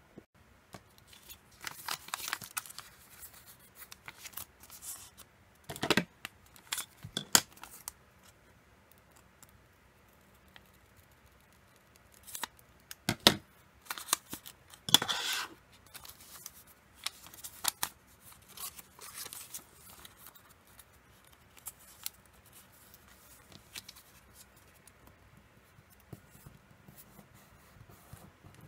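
Origami paper being handled and creased by hand, with a few sharp snips of scissors cutting into the folded paper around the middle.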